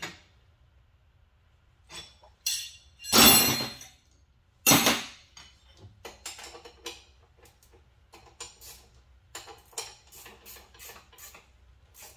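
Metal tools and hardware clinking and knocking during mechanical assembly work: two loud clanks about three and five seconds in, then a run of light clinks and taps.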